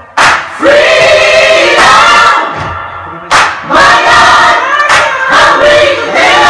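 Choir singing in harmony, several voices together, in sung phrases broken by brief pauses.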